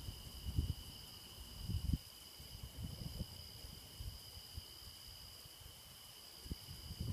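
A steady, unbroken insect chorus at night: a continuous high, two-pitched chirring. A few soft low thumps come in the first two seconds.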